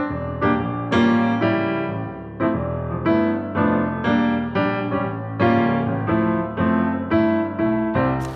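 Background piano music: a melody of struck notes that start sharply and fade, over sustained lower chords.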